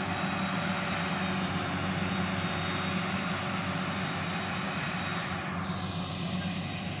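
Forage harvester's engine and chopping drum running steadily under load, heard from inside the cab. A high whine falls in pitch about five and a half seconds in.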